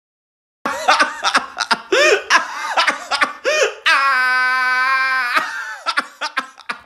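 A man laughing loudly in short 'ha' bursts, then holding one long steady 'aaah' for about a second and a half, then a few more short laughs. It is an exaggerated laugh acting out an accidentally typed 'Hahaahaaaaaaaaaah'.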